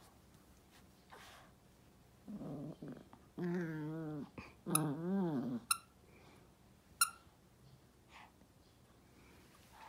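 Toy poodle making low play growls: three short wavering growls a couple of seconds in, with a few sharp clicks after them.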